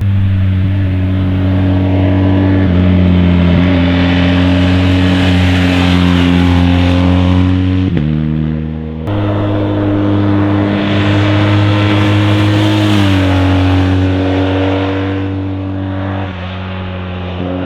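BMW R 1250 GS ShiftCam boxer twin engine running at a fairly steady speed. Its pitch steps down a few times, and there is a brief dip in level just before the 9-second mark.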